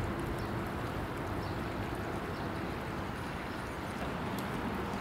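Steady rush of lake water, with a faint low hum coming in about four seconds in.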